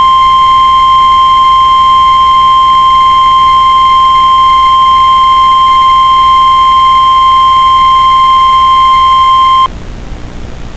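NOAA Weather Radio 1050 Hz warning alarm tone: one loud, steady, unbroken beep held for about ten seconds, cutting off suddenly near the end. It is the attention signal that precedes an emergency alert's spoken message.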